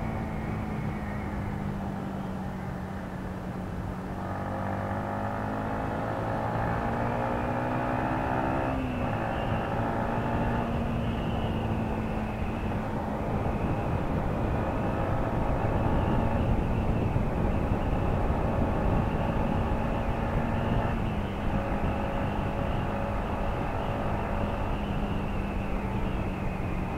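Yamaha MT-15's 155 cc single-cylinder engine heard from the rider's seat at road speed, under heavy wind rush on the microphone. The engine note climbs under throttle and drops with an upshift about nine seconds in, then drops again with another upshift around twenty-one seconds in.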